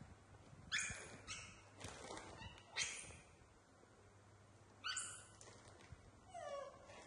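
Baby macaques giving short, high-pitched squeaks a second or two apart, with a falling whimper near the end.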